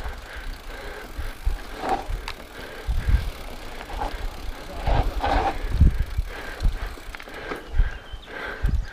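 Rockrider XC50 mountain bike rolling downhill on a dirt singletrack: tyres crunching over dry earth and leaves, and the bike rattling, with irregular low thumps as the wheels hit bumps.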